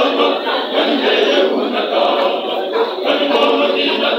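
Many voices singing together, as a choir or crowd, dense and steady throughout, with a thin sound lacking bass and treble.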